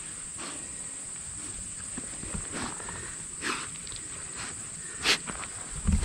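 A basset hound rolling on her back in a dirt and grass trail, her body scuffing and rustling against the ground a few times, with the loudest scuff about five seconds in. A steady high insect drone goes on behind.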